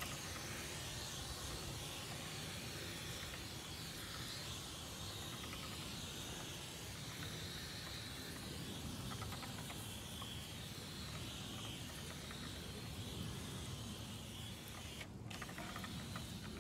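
Hand-pump pressure sprayer (Mesto) hissing steadily as it mists cleaner onto a car wheel, with a short break about fifteen seconds in.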